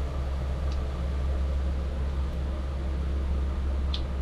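Murukku frying in hot oil: a steady, even hiss over a constant low hum, with a small click near the end.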